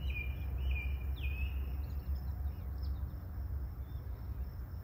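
Songbirds calling, with a few clear whistled notes, one sweeping upward, in the first second and a half and faint chirps after, over a steady low rumble.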